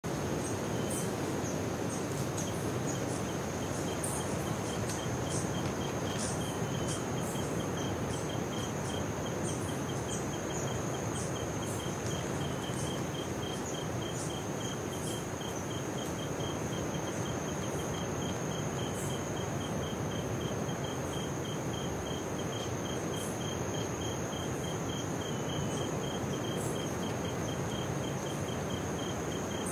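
Tropical rainforest insects by the sea: a steady high-pitched insect whine and a fast, evenly pulsing cricket-like chirp, with scattered short high calls, over a constant rush of ocean surf.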